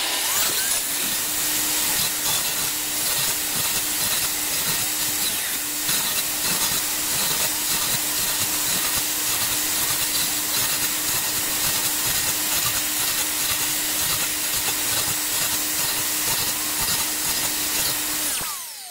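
Ferrex 216mm sliding mitre saw starting up with a quick rising whine, then running steadily while its blade cuts through timber in passes to form a lap joint. Near the end it is switched off and winds down with a falling whine.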